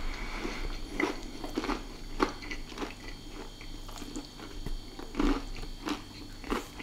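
A person chewing a mouthful of crispy fried chicken thigh, the breaded crust crunching in irregular bites.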